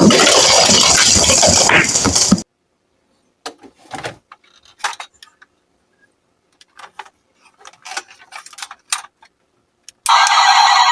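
A loud, dense rattling noise cuts off abruptly about two seconds in. It is followed by sparse light clicks and clinks of small die-cast toy cars being handled. Near the end a loud tonal sound starts abruptly.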